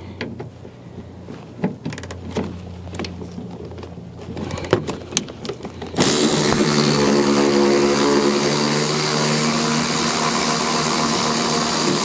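Air ratchet with a T30 Torx bit running steadily from about halfway, backing out a door bolt: a strong hiss of air with a motor whine. Before it starts there are a few light clicks and knocks as the tool is set on the bolt.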